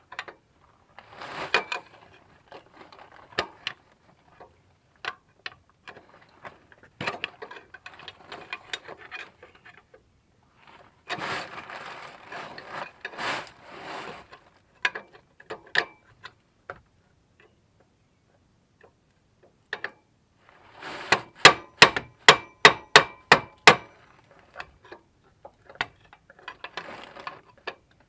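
Metal hand tools working at a van's A/C compressor clutch plate: irregular scraping and rubbing, with scattered clicks and knocks. About two-thirds of the way through comes a quick run of about a dozen sharp metallic clicks, roughly five a second.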